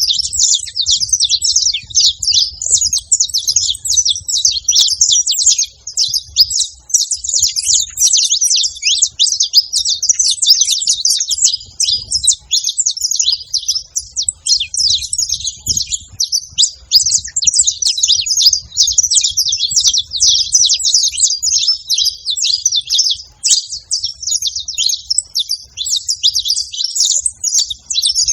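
A flock of saffron finches chirping and singing together, a dense, unbroken chatter of many overlapping short, high chirps.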